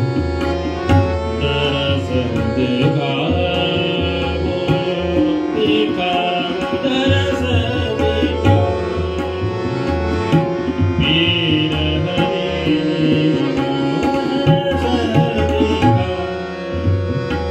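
A male vocalist sings in Hindustani classical style, in long gliding phrases over a held harmonium accompaniment. Tabla keeps up a steady rhythm of sharp strokes and deep bass-drum beats.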